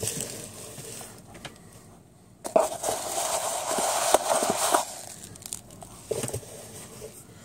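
Foam packing peanuts rustling against each other and the cardboard box as hands dig them out, with a loud stretch of rustling from about two and a half seconds in, lasting about two seconds, and scattered small clicks of handling.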